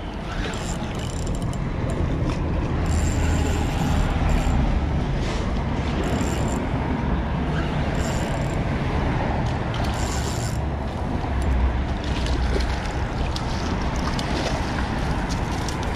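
Steady low rumble of wind on the microphone and traffic on the bridge overhead, with a few short hissy rustles.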